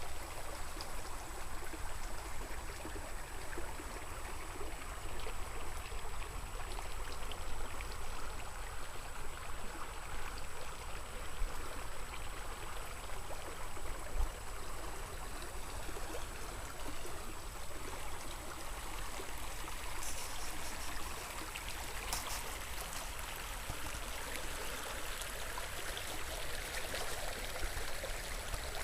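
River water flowing steadily, an even rushing sound with a low rumble underneath and a few brief clicks about two-thirds of the way through.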